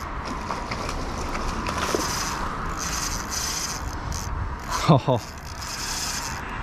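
Rasping, rubbing noise of a spinning reel being worked while fighting a hooked fish, with handling noise on the phone. About five seconds in there is a short, loud falling vocal groan.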